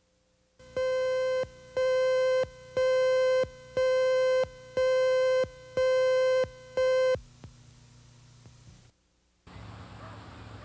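Seven identical electronic beeps, one about every second, each a buzzy mid-pitched tone lasting most of a second: the cue tones of a TV news tape slate. Near the end a steady hiss and hum of field-tape sound comes in.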